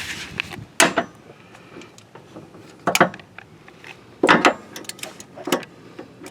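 Four short, sharp clanks and knocks, with lighter clicks between, from a breaker bar on a wobble extension and socket being worked against the Honda Odyssey transmission's 4th gear pressure switch to break it free.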